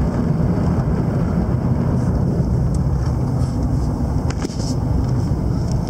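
Steady low rumble of road, engine and wind noise inside a moving pickup truck's cab, with one faint click about four seconds in.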